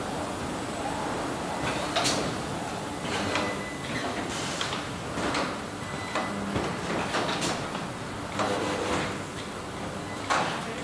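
Car-factory paint-shop machinery: a steady mechanical background with irregular short hissing whooshes and clatters, roughly one every half second to second.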